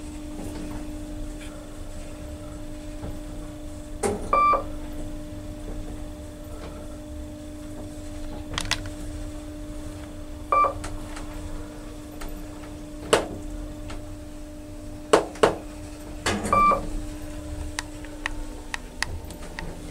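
Kone-modernised traction elevator car travelling down, with a steady hum throughout. A short electronic beep sounds three times, about six seconds apart, and sharp clicks come now and then.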